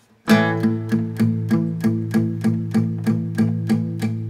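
Background music: a strummed string instrument playing a steady rhythm of about three strokes a second, coming in sharply a moment after the start.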